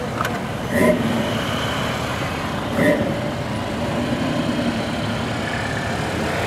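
Engines of classic cars and pickup trucks running as they drive slowly past in a line, with two brief louder sounds about a second in and about three seconds in.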